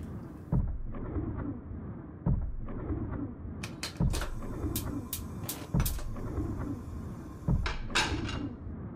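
Suspense film-score sound design: a low beat that repeats about every second and three-quarters over a dark hum, with a few sharp clicks in the middle and a rising whoosh near the end.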